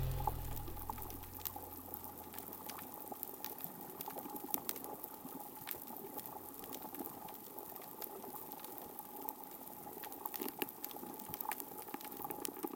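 Faint underwater reef crackle recorded by hydrophone: a dense, irregular patter of snapping-shrimp clicks, with a faint steady tone underneath. The tail of the music fades out in the first second or so.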